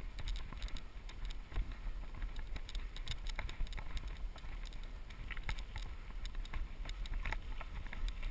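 Mountain bike rolling up a pebbly dirt trail: a steady low rumble with many scattered clicks and ticks from the tyres and rattling bike.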